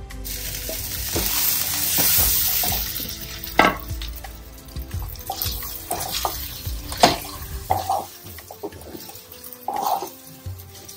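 Food sizzling in a hot non-stick kadai: the hiss swells over the first couple of seconds and fades by about four seconds in. A wooden spatula then stirs and scrapes mashed potato and chicken mixture around the pan, with a few sharp knocks against the pan, the loudest about three and a half and seven seconds in.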